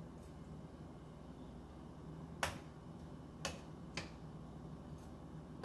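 Three sharp clicks, the first the loudest and the others about a second apart, over a steady low hum.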